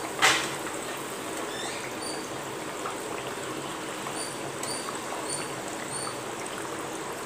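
Wheat-flour biscuit dough rounds deep-frying in oil, a steady sizzle on a low flame. A metal spoon turning them clinks sharply on the pot once, just after the start.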